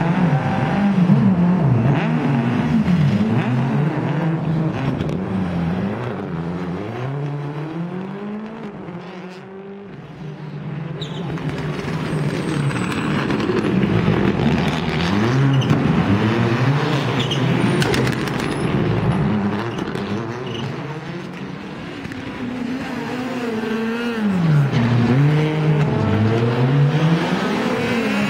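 Rally car engines revving hard and dropping back in quick gear changes as cars race past. The sound fades about a third of the way through, then builds up again and dips once more before the end.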